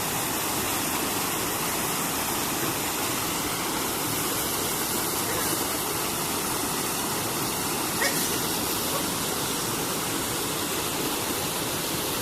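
Steady rush of fast-flowing water, like a waterfall heard close by. A single brief click comes about eight seconds in.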